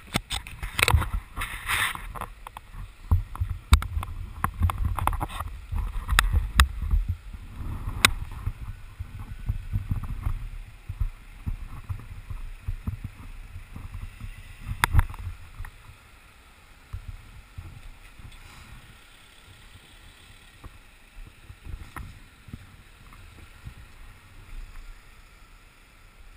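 Irregular knocks, clicks and rubbing of a camera being handled and moved about, over a low rumble on the microphone. It is busiest and loudest in the first several seconds and quieter after about sixteen seconds.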